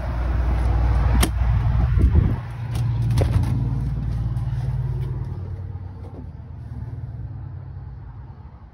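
Wind rumbling on a handheld phone microphone, with a few sharp knocks and clicks from footsteps on the metal entry steps and the trailer door. The rumble dies away after about five seconds.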